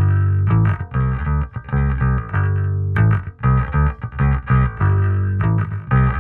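Electric bass guitar playing a quick plucked riff through an optical compressor pedal. The phrase starts over about three seconds in.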